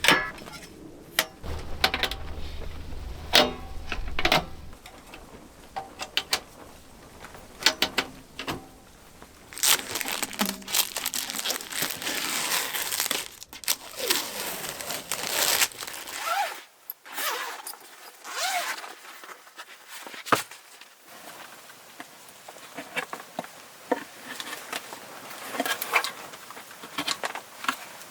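Gear being handled by hand: a string of irregular clicks and knocks, with a longer stretch of rustling and crinkling about ten seconds in.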